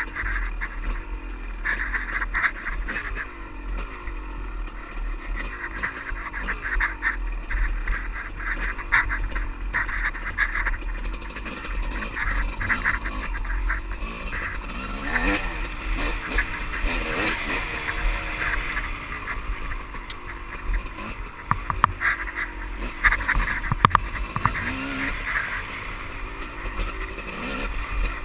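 Honda dirt bike engine running under the rider, its pitch rising and falling as the throttle is worked over rough ground, with scattered knocks and rattles from the tyres and chassis on rocks.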